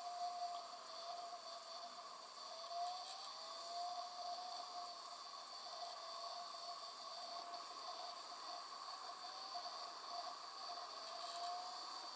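The DVD drive in a Philips DVD755VR DVD/VCR combo is spinning a disc and trying to read it. Its faint motor whine wavers, rising and dipping in pitch several times as the disc speeds up and slows. The drive fails to read the disc and ends in a disc error, which the owners put down to a dead DVD drive or laser.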